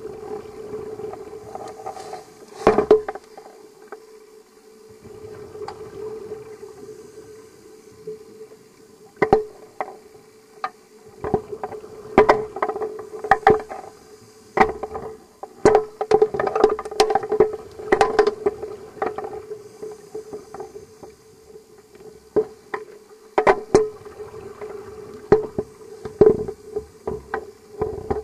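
Underwater sound picked up through a video camera's waterproof housing on a scuba dive: a steady hum with many irregular sharp clicks and knocks, some in quick runs, and patches of low rumble in between.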